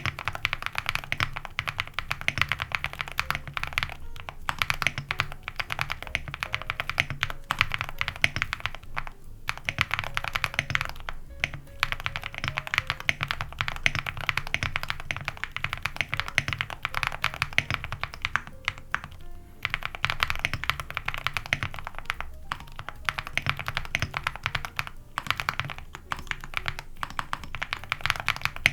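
Fast, continuous typing on a mechanical keyboard with Gateron Moon Landing switches, aluminium plate, full foam and dye-sub PBT keycaps, giving dense clacks broken by short pauses a few times. Music plays underneath.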